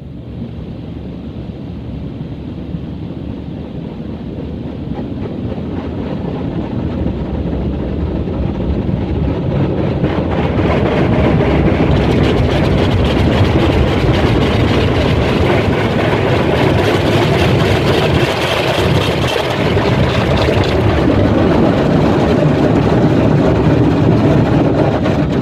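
Rotating SofTecs wash brushes of a WashTec SoftCare 2 Pro car wash scrubbing wet and foamy over the car body, heard from inside the cabin: a dense, loud swishing with a fine rapid patter of brush strands on glass and panels. It builds steadily and is loudest from about ten seconds in.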